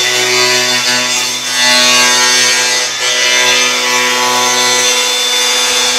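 Cordless angle grinder cutting a notch into the steel bodywork of a Honda Civic at the front wheel arch. It runs steadily, a constant motor whine under a loud grinding hiss.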